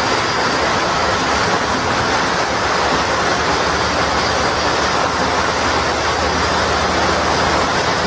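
Cold pyro spark fountains on a spinning fan wheel machine, firing together in a steady hiss.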